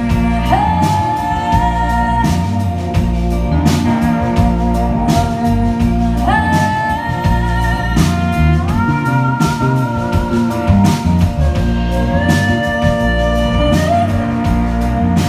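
Live rock band playing: electric guitar, bass guitar and drum kit, with steady drum strokes under the mix. Several long held notes slide up into pitch about a second in, around the middle, and near the end.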